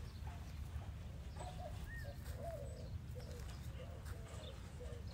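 A dove cooing in a run of short, repeated coos, with one brief higher chirp about two seconds in, over a steady low rumble.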